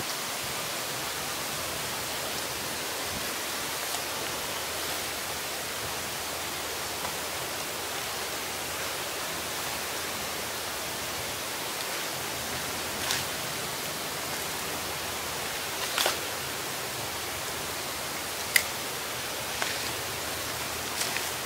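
Steady outdoor background hiss, with a few short sharp clicks and taps in the second half.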